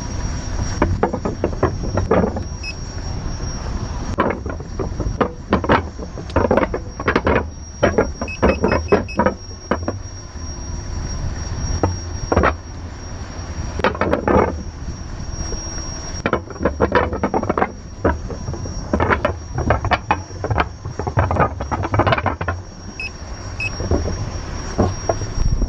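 Gotway MCM4 electric unicycle rolling along a concrete-slab footbridge. A steady low rumble of wind and tyre runs under irregular knocks and rattles as the wheel crosses the paving joints, with a steady high thin whine above.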